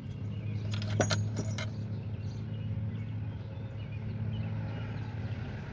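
Steel thread taps clinking against one another as a hand picks through a drawer of them, with a few sharp clinks about a second in and fainter ticks after.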